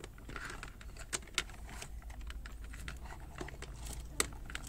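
Irregular light clicks and taps of small plastic parts being handled, as a dashcam and its hardwire cable are fiddled with to get the camera to switch on. A low steady hum runs underneath.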